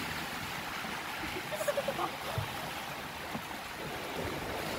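Steady rush and hiss of water moving around a ride boat travelling along an amusement-park water channel.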